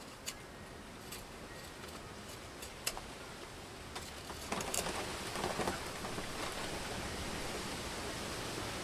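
Steady rain hiss, with short scraping strokes of a Schrade Frontier SCHF42D knife blade shaving wood, loudest about halfway through, and a few sharp clicks.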